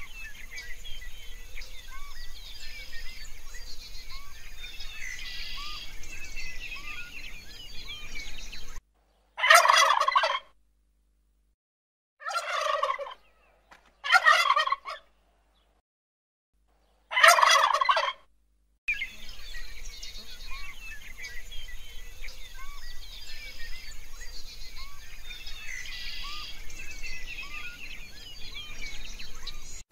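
A domestic fowl gives four loud calls, each about a second long and a second or two apart. Faint chirping runs in the background before and after the calls.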